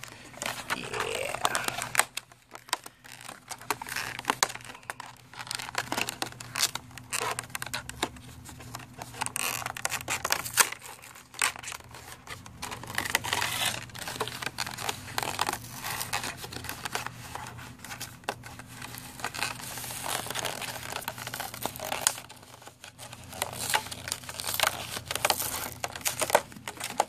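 Cardboard and clear plastic blister packaging being handled and pulled apart by hand: irregular crinkling, crackling and tearing with scraping clicks as the packaging is worked off.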